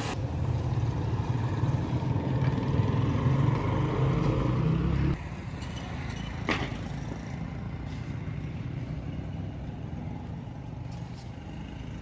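Car-wash pressure-washer pump motor running with a steady low hum after the spray stops, then shutting off suddenly about five seconds in. A single sharp click follows a little later.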